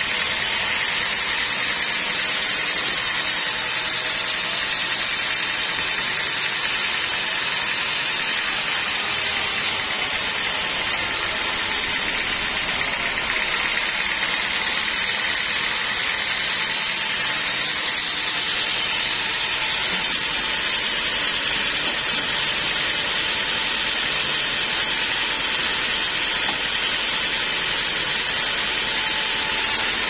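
Band sawmill running, its blade cutting lengthwise through a large block of timber: a steady, even saw noise with no breaks.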